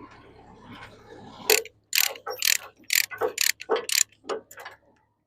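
Ratchet tie-down strap being worked loose: about a dozen sharp ratcheting clicks and rasps over about three seconds, starting a second and a half in, over a low steady hum.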